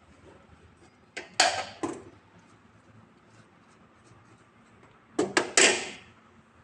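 Handling noise from gloved hands and a screwdriver working cables into a plastic PV combiner box: two short clusters of knocks and scrapes, one about a second in and another near the end.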